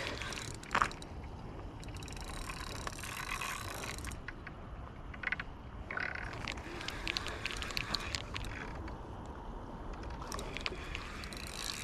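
Close handling noise of fishing tackle: rustling and scraping with many small clicks, coming in several spells, as waterweed is cleared and the hooked fish is brought in.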